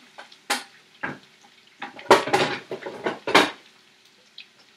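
Kitchenware being handled: pots, pans and utensils knocking together in several separate sharp clanks and clinks, the loudest around two seconds in.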